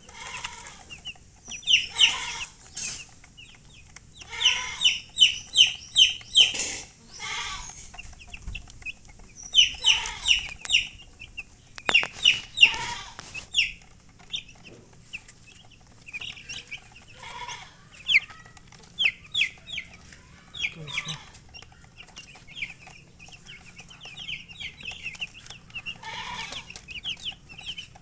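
Baby chicks peeping in quick runs of short, high, falling chirps, with a hen clucking now and then.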